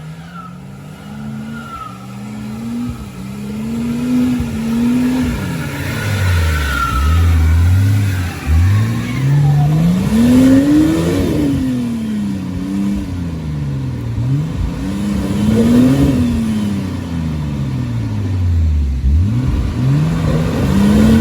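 Off-road 4x4's engine revved up and down over and over as it works over an obstacle, its pitch rising and falling every couple of seconds, loudest about halfway through.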